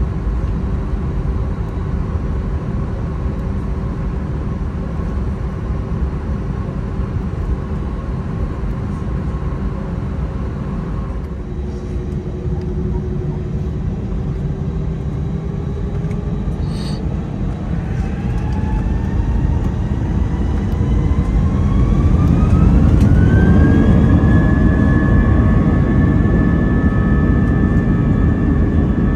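Airbus A320 jet engines heard from inside the cabin: a steady rumble and hum, then from about seventeen seconds in a whine rises in pitch and the rumble grows louder as the engines spool up to takeoff thrust, levelling off near the end.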